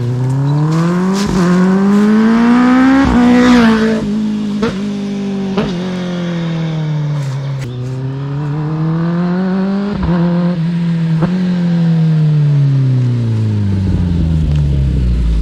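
Kawasaki ZX-10R inline-four with an SC Project SC1-R long-can titanium exhaust riding past, accelerating and easing off twice. The engine note climbs for about three seconds, slowly falls away, climbs again until about ten seconds in, then drops toward the end.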